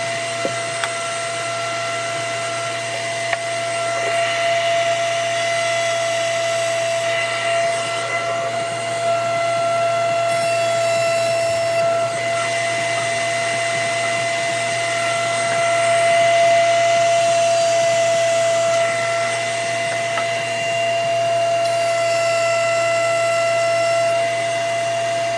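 Table-mounted router running at speed with a steady high whine, with a dust collector running as well. The sound swells in stretches as the wooden box side is fed past the bit to cut the hinge mortises.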